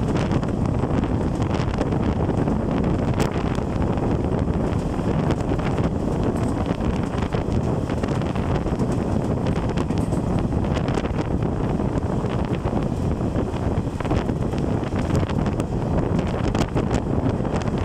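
Wind buffeting the microphone at the window of a passenger train running at speed, over the steady rumble of the coach on the rails, with a few faint clicks.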